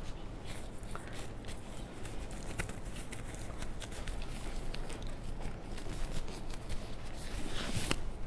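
Thin plastic disposable gloves rustling and crinkling as they are pulled onto the hands and smoothed over the fingers: a scatter of small clicks and crackles, a little louder near the end.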